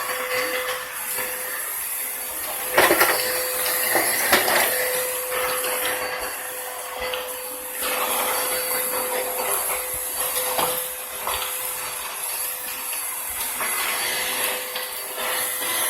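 Vacuum cleaner running steadily, a motor hum with a high whine over a rushing hiss, with a few sharp knocks along the way, the loudest about three seconds in.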